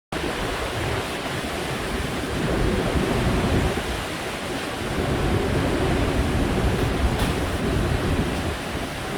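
Heavy storm surf breaking in typhoon-strength wind, with gusts buffeting the microphone; a loud, continuous rumbling wash that swells and eases.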